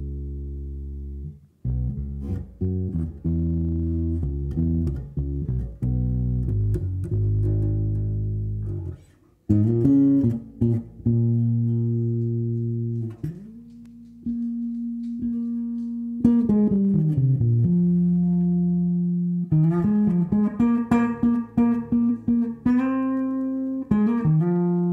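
Solo electric bass: a 1963 Fender Precision Bass played with the fingers through a Markbass amp. It plays low notes in a groove at first, then after a short break about nine seconds in moves to higher held notes, a downward slide, and quicker busier phrases near the end.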